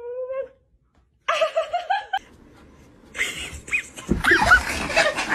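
A dog's drawn-out howl ends abruptly. After a short silence comes another brief wavering cry, and then several people burst out laughing loudly.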